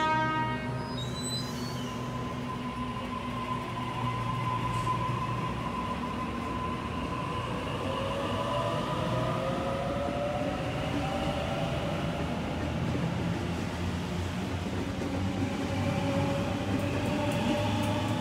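Sydney Trains double-deck electric train running along the platform: a steady rumble of wheels and motors, and a horn blast that cuts off right at the start. From about halfway, the traction motors' whine rises in pitch as the train gathers speed, with quick clicks from the wheels near the end.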